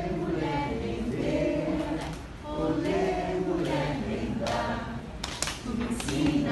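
A group singing a cappella in an improvised circle song, with several layered vocal lines. A couple of sharp clicks come about five seconds in.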